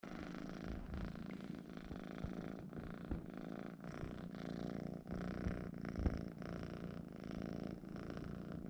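A Scottish fold kitten purring steadily close up, the purr rising and falling with its breaths. A couple of brief low knocks sound about three and six seconds in.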